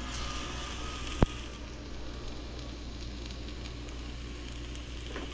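Grouper fillets sizzling as they are laid into a hot cast iron pan on medium heat, with one sharp click about a second in.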